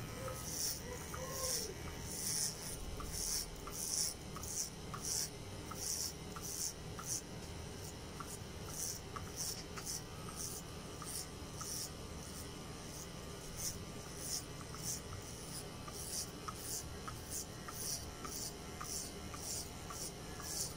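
Electric hair clippers with a number 2 guard running over the scalp, the blades rasping through hair in repeated strokes about twice a second over the motor's steady hum.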